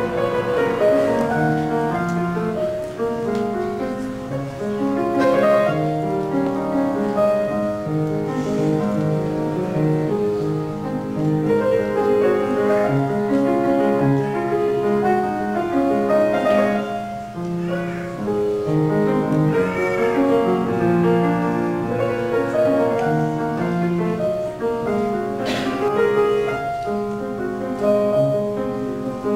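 A grand piano played solo: a continuous piece of many changing notes, played live.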